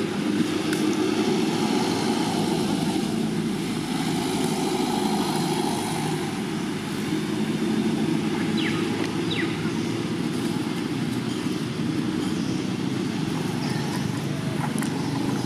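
A steady low rumble, even in loudness, with two faint short chirps a little past halfway.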